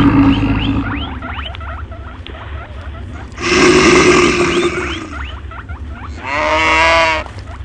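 Mixed animal sound effects for a stampede: a loud roar lasting about a second and a half, starting midway, and a pitched, bending animal call about a second long near the end. Quick rising chirps and light clicks run underneath.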